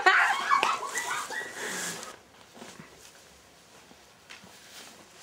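Excited voices without clear words, shrieking or calling out, for about the first two seconds, then quiet with a few faint knocks.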